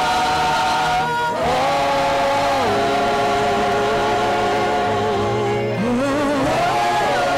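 Live gospel worship singing: a woman's voice with backing singers holding long notes over the band, sliding to new pitches a few times.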